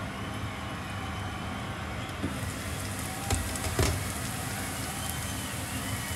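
Food sizzling steadily in a frying pan, with a few short knocks of a utensil against the pan about halfway through.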